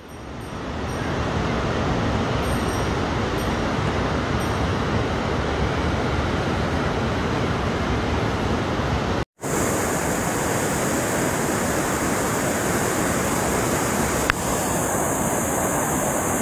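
Steady rush of muddy floodwater pouring over a weir. It cuts out for an instant about nine seconds in, then gives way to a hissier rush of a swollen, fast-flowing river.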